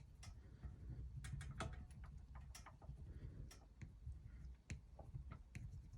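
Irregular light clicks and ticks of a wax crayon being rubbed side to side over the engraving on a firearm, the crayon skipping across the engraved grooves.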